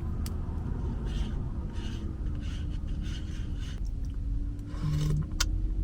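Quiet eating sounds from a spoon and a bowl of soup: a few soft hissy scrapes or sips, then a sharp click of the spoon near the end, over a steady low room hum.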